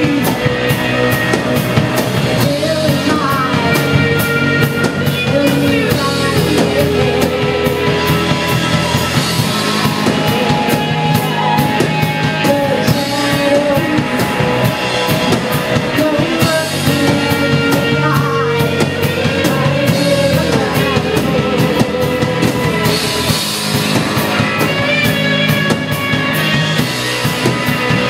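Live rock band playing: a singer over electric guitar and a drum kit keeping a steady beat.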